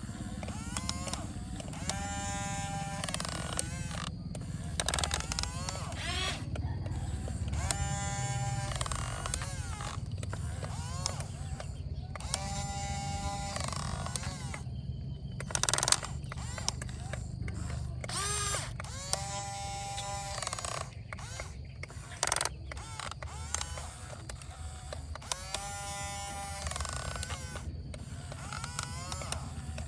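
Electric motors and hydraulic pump of a remote-controlled excavator whirring over a steady low hum, with a buzzing whine that swells and bends in pitch in short spells every few seconds as the arm and boom are worked.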